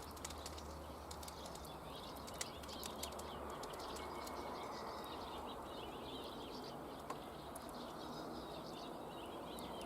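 Small birds chirping and twittering outdoors, with scattered faint sharp clicks over a steady low hiss.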